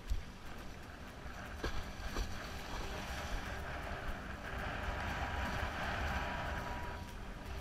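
Wind buffeting the action camera's microphone while windsurf-foiling at speed, with the hiss of water rushing past the board and foil swelling louder from about three seconds in.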